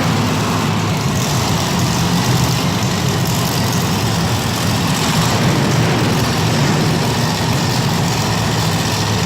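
Monster truck engine running steadily, a loud continuous drone with no revving.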